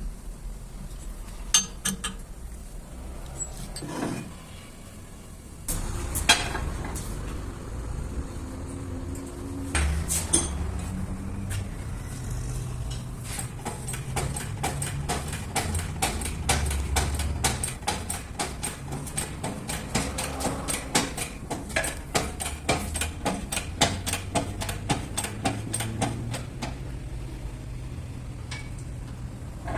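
Metal clinking and tapping, like hand tools working on steel car parts, with a long run of quick, fairly even clicks through the middle, over a low hum.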